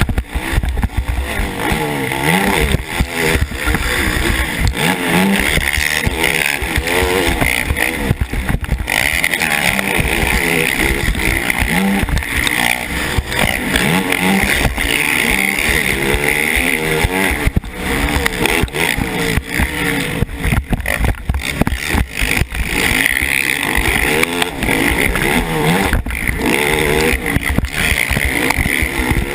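KTM 450 SX racing quad's single-cylinder four-stroke engine at race pace, heard close up from the rider's helmet camera. It revs up and falls back again and again through the gears, with irregular low buffeting on the microphone.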